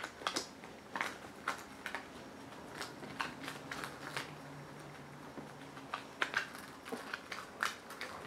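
Irregular soft clicks and rustles of a cat clawing, biting and kicking at a feather wand toy on a fleece blanket.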